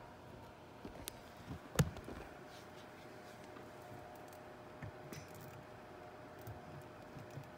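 Quiet handling noise in a small room: a few light clicks and one sharper knock about two seconds in, as a small plastic action figure accessory and the phone are handled, over a faint steady hum.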